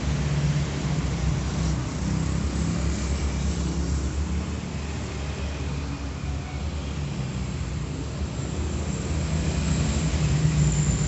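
A steady low rumble, like a motor or passing traffic, a little louder near the end.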